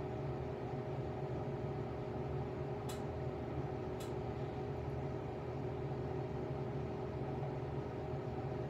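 A steady machine hum with a constant held tone, and two faint clicks about three and four seconds in.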